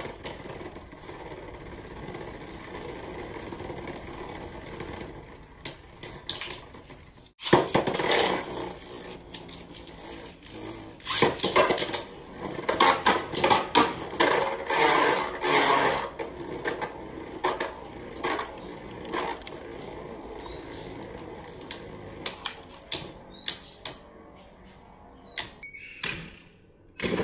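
Beyblade Burst spinning tops, Real Saber Ravana and Slash Marcus, whirring around a plastic stadium and clashing, with rapid hard clicks and knocks over a steady whir. The clashing is densest in the middle, after a brief dropout about seven seconds in.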